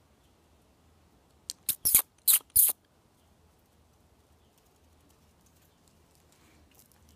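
A dog gives a quick string of about five short, sharp, high yips, packed into about a second starting about a second and a half in.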